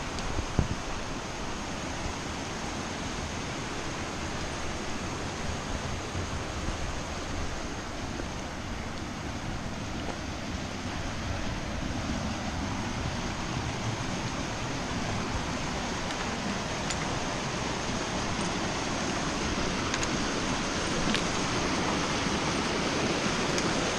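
Mountain creek rushing over rocks and a small cascade, a steady noise of running water that grows louder toward the end.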